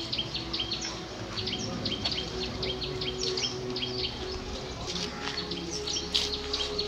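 A busy chorus of small birds chirping, many short high chirps overlapping without pause, over a faint steady hum.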